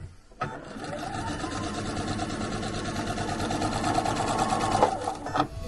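Husqvarna Viking sewing machine stitching steadily at speed, the needle running in a fast even rhythm, sewing chenille bias tape down onto a quilt panel. It starts about half a second in and stops just before the end.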